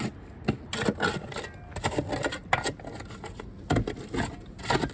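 Irregular scrapes and clicks of a small hand digging tool working into packed dirt, a few sharp knocks among them.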